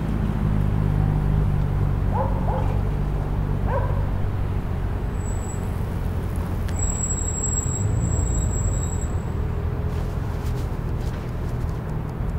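Steady low rumble of distant city traffic, with a dog barking three times in the distance about two to four seconds in. A thin high whine sounds through the middle.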